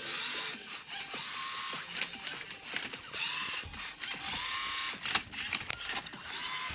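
LEGO Mindstorms EV3 Rubik's cube solver working through its moves: electric motors whirring up and down again and again while the cube's layers click and rattle as they are turned, one move about every second or two.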